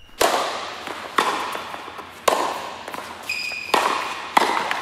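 Logo sting sound effect: five sharp hits at uneven spacing, each trailing off in a long echo.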